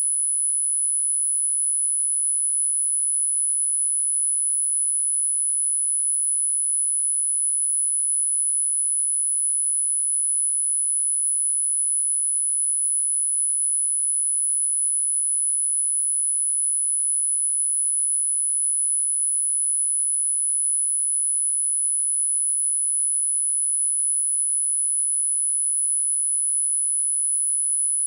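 A single steady, high-pitched electronic sine tone of about 10 kHz, held at a constant pitch and level without a break.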